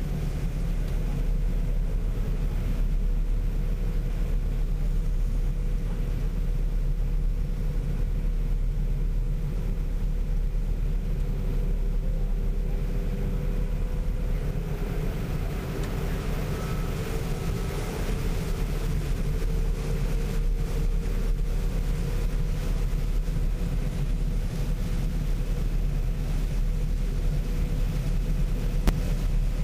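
John Deere 9660 STS combine running steadily while harvesting soybeans: a constant low engine rumble with a steady hum over it.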